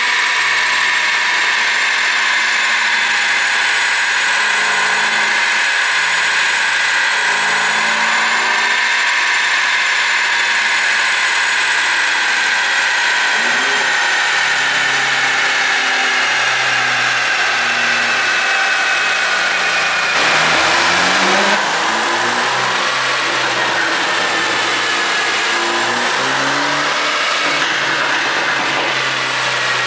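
Mercedes-Benz C200 engine, its ECU remapped for exhaust pops, running and being revved up and down, the engine pitch stepping and gliding. A high steady whine sits over it and slowly falls in pitch, with a brief louder surge about two-thirds of the way through.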